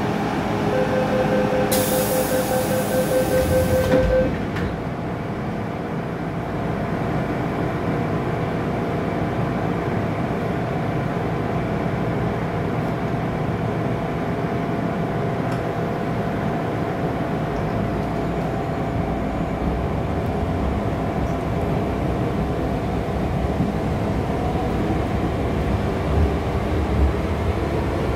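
Door-closing warning beeps on an MTR Island Line M-Train, with a hiss as the doors slide shut, ending in a thud about four seconds in. The train then pulls away and runs through the tunnel with a steady rumble of wheels and running gear and a faint steady whine.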